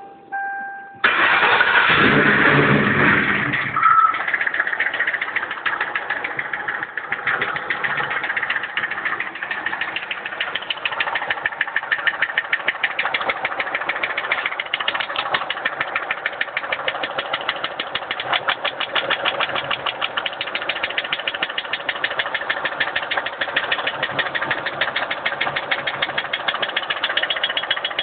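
Mercury Marauder's 4.6-litre DOHC V8 cranked and started, then running with a loud, regular rapid knock: the engine detonated and broke a piston.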